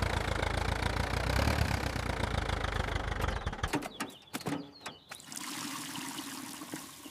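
An engine running with a steady low rumble for about three and a half seconds, then a few knocks, then water pouring softly.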